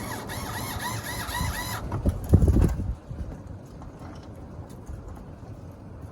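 Small cordless electric screwdriver driving a speaker mounting screw: its motor whines for about two seconds, the pitch wavering up and down in quick even repeats as it turns under load, then stops abruptly. A loud low thump and rumble follows about two seconds in.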